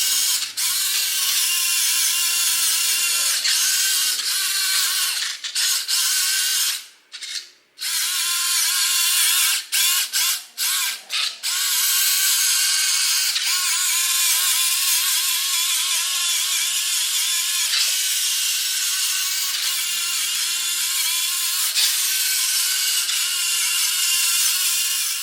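A small high-speed power tool running steadily with a wavering whine, as if cutting or grinding. It stops for about a second, then cuts out briefly several times before running on.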